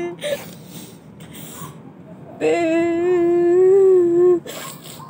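A woman crying in grief: after a quieter stretch, one long, steady wail about halfway through, held for about two seconds.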